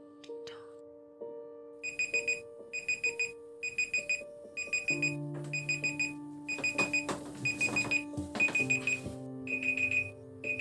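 Smartphone alarm beeping: tight clusters of rapid, high-pitched electronic beeps repeating over and over, starting about two seconds in. Soft background music plays underneath.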